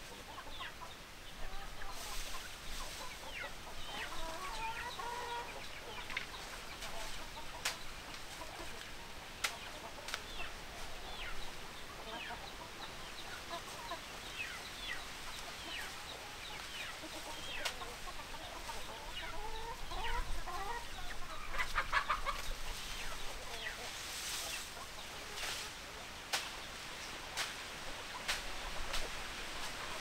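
A flock of chickens clucking and calling while feeding: many short calls throughout, scattered sharp clicks, and a busier stretch of calling a little past the middle.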